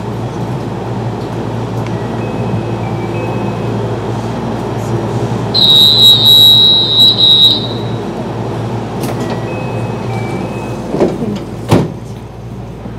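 JR West 223 series 5000 electric train standing at the platform with its equipment humming steadily. About six seconds in, a shrill high departure signal sounds for about two seconds, breaking up near its end. Near the end the sliding doors close with a couple of sharp knocks.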